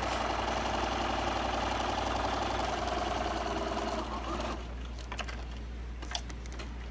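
Computerized sewing machine stitching a seam at a steady fast rate, stopping about four and a half seconds in; a few light clicks follow.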